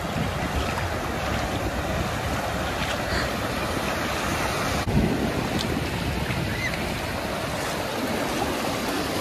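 Steady rush of wind and ocean surf, with wind buffeting the microphone. A single brief knock about five seconds in.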